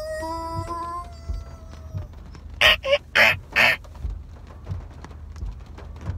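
A man making non-word cartoon-style vocal noises: a held, high whining tone for about the first two seconds, then three short, loud, raspy squawks about three seconds in.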